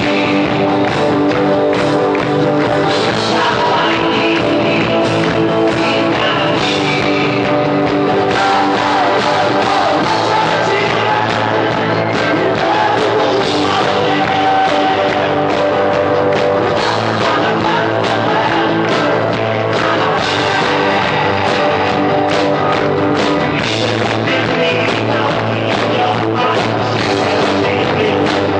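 Rock music played live by a band, with singing.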